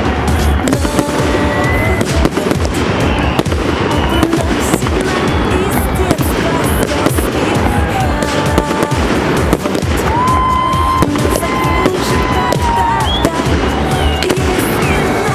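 Fireworks barrage going off without pause: dense crackling and popping, with a few whistling tones drifting in pitch.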